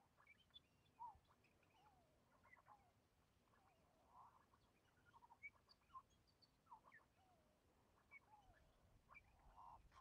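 Australian king parrots calling faintly: scattered short chirps and soft notes, several sliding down in pitch, a few each second.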